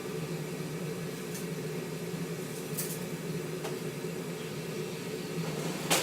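A steady machine hum, with four sharp clicks or taps over it, the loudest just before the end.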